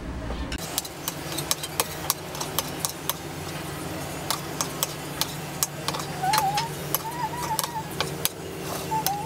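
Metal spoon and fork clicking and scraping against a plate of noodles, in irregular clinks throughout. A faint wavering tone comes and goes twice, about six seconds in, over a steady low hum.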